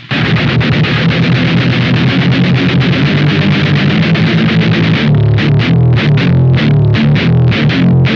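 Electric guitar played through a Velouria FX Witchcraft distortion/preamp pedal, heavily distorted. Sustained, ringing chords for about five seconds, then a tight riff of short, clipped notes about four a second.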